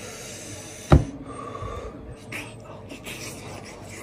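Close-miked eating noises: breathing and mouth sounds while a hand works food in a bowl, with one sharp knock about a second in.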